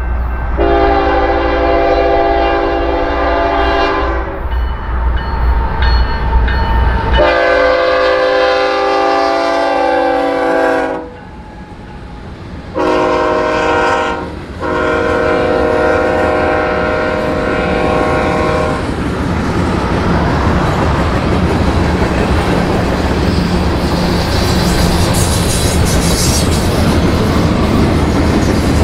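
Freight diesel locomotive's multi-chime air horn sounding the grade-crossing signal: two long blasts, a short one and a final long one, over a deep rumble. Then the train's cars roll past with steady rail noise and clickety-clack.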